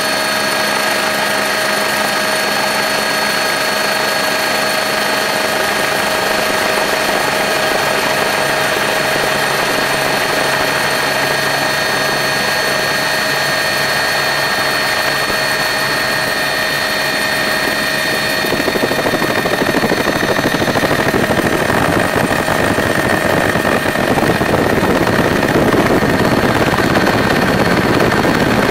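Steady engine and cabin noise of the aircraft carrying the camera, with several constant whining tones over a drone. About two-thirds of the way in a louder rushing noise comes up and grows stronger near the end.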